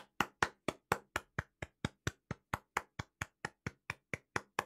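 One person clapping steadily, about four to five sharp claps a second, each clap short with dead silence between them.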